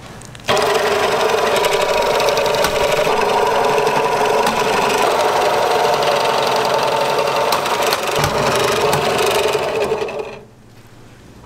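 A machine running steadily with fast clicking. It starts suddenly about half a second in and stops suddenly near the end.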